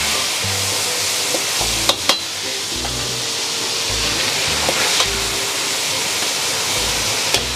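Shredded pork, scallion and ginger sizzling in hot oil in a wok as they are stir-fried. A few sharp clicks of the metal spatula against the wok stand out.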